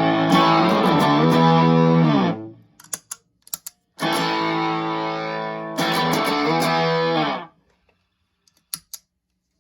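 Electric guitar played through a KVFX Skuzz Tone fuzz pedal, modelled on the Maestro Fuzz-Tone, and an Egnater Tweaker 15 amp: sustained fuzzed chords, each muted off abruptly, the first with a sliding pitch bend about a second in. Light string and pick clicks fall in the gaps between chords.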